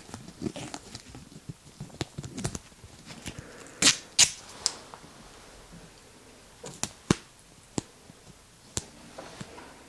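Irregular sharp clicks and taps of small hard objects being handled, with two louder clicks close together about four seconds in.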